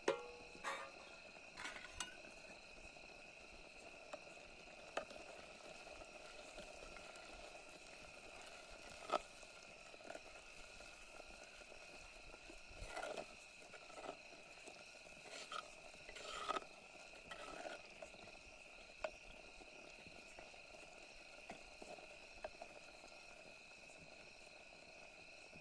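Scattered clinks and scrapes of a utensil stirring in a cooking pan, the sharpest knocks near the start and about nine seconds in. A steady insect chirr, as of crickets, runs underneath.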